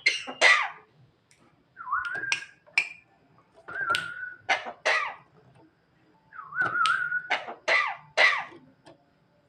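Javan myna calling in four short bursts with pauses between: whistled notes that glide and waver, mixed with sharp, harsh clicks. Some of the calls are its imitation of a person's cough.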